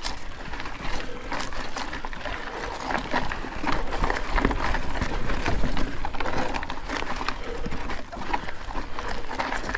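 Cannondale Scalpel Carbon 2 mountain bike riding over rough, rocky singletrack: tyres crunching over loose ground with a constant clatter of irregular knocks and rattles from the bike.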